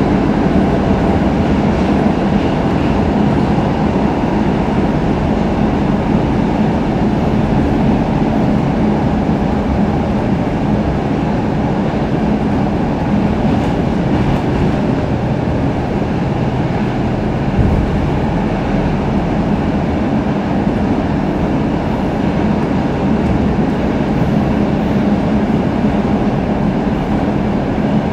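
Stockholm Metro C6 subway car running at speed, heard from inside the car: a steady rumble of wheels on rail, with one short knock a little under two thirds of the way through.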